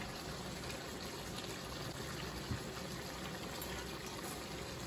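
Low, steady hiss and bubble of a tomato-sauce pan of veal and peppers simmering on the stove, with one faint click about halfway through.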